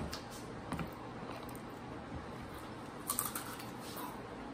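Crunchy spicy snack chips being chewed close by: a sharp click at the start, scattered faint crunches, and a short burst of crackling a little after three seconds in.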